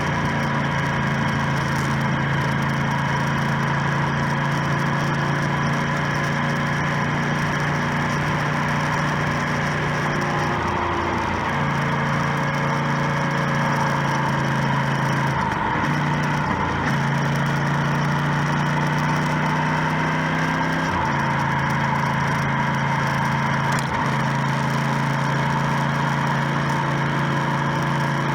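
Motorcycle engine running steadily under way, with wind and road noise. Around the middle the engine note breaks and changes pitch a few times, as with gear changes or throttle changes, then holds steady again.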